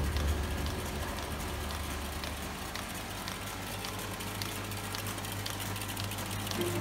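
APR Box Plus 2 folder gluer running: a steady low hum with many light clicks, the machine folding and gluing crash-lock cartons.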